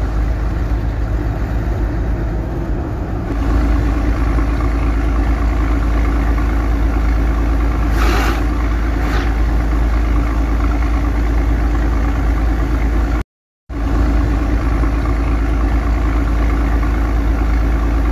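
Heavy diesel truck engine running steadily, heard from inside the cab while driving in traffic, with two short hisses about eight and nine seconds in. The sound drops out completely for a moment about thirteen seconds in.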